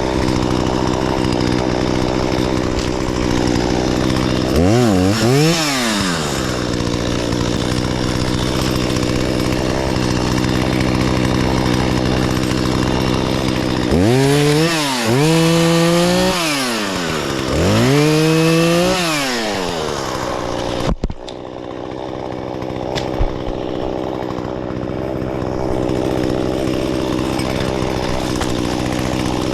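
Two-stroke chainsaw idling steadily, revved up and back down three times: briefly about five seconds in, then twice for a couple of seconds each around the middle, with a sudden break in the sound about two-thirds of the way through.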